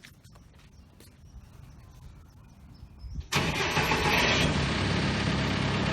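Vermeer BC 1800 XL wood chipper's engine starting: it catches suddenly about three seconds in and settles into a steady idle.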